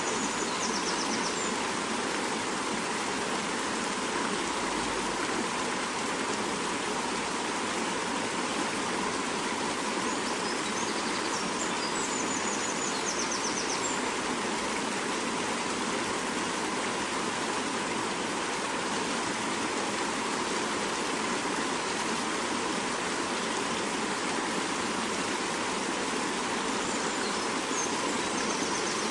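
Swift mountain river rushing steadily, an even unbroken water noise.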